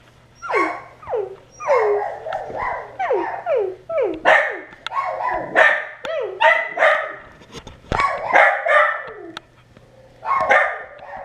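Pet dogs barking over and over, about two barks a second, each bark sliding down in pitch, with a brief pause near the end.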